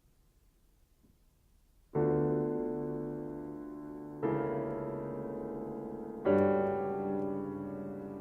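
Solo piano: about two seconds of near silence, then three slow chords struck about two seconds apart, each left to ring and fade.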